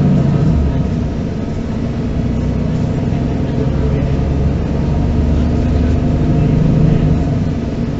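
Inline six-cylinder diesel engine of a MAN NG 313 articulated city bus, heard from inside the bus while riding. The engine note drops about half a second in and rises again around six seconds in as the engine speed changes.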